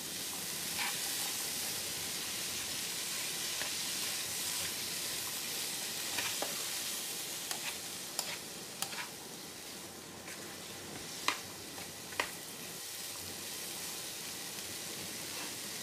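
Chickpeas and onions sizzling in oil as they are stir-fried in a frying pan, a wooden spatula scraping and turning them, with a few sharp clicks of the spatula against the pan.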